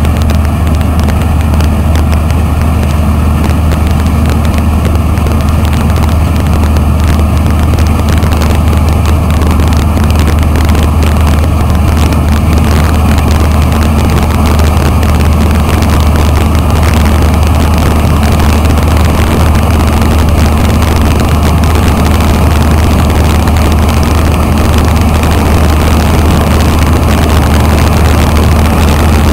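Large diesel engine of a harvest machine, a combine or tractor, running steadily and loud, with no change in pitch or rhythm.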